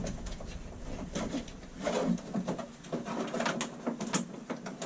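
A switch and its wiring being pushed and worked into a tight hole in a wall panel: irregular scraping, rubbing and small knocks.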